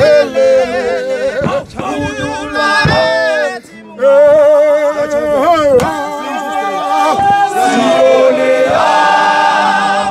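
A men's choir singing a cappella in harmony, with a brief break about three and a half seconds in before the voices come back in together.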